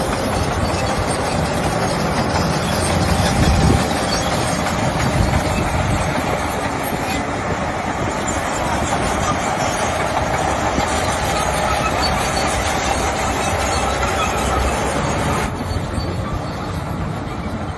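Heavy earthmoving machinery at work: the diesel engines of a bulldozer and a dump truck running steadily under load as they move dirt. The sound changes, losing some of its hiss, about fifteen seconds in.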